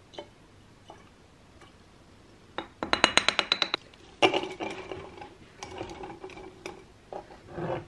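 Reed diffuser sticks being pushed into a ceramic diffuser pot: a quick rattle of the sticks against the rim about three seconds in, then a clink that rings on and fades, with a few lighter knocks as the sticks settle.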